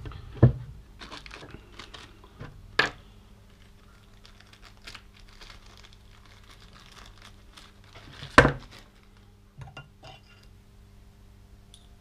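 Crinkling and rustling as a new tapered roller headset bearing is handled and unwrapped at the workbench. Three sharp knocks of parts set down come through, the loudest about eight seconds in.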